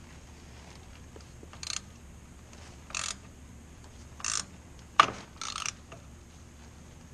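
Oil filter wrench worked by hand to snug down the hydraulic filter on a Hydro-Gear ZT-3100 transaxle, the final half to three quarters of a turn past hand-tight: a handful of short ratcheting, scraping strokes about a second apart, with a sharp click about five seconds in.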